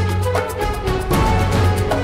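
Music with a steady beat and a held bass line.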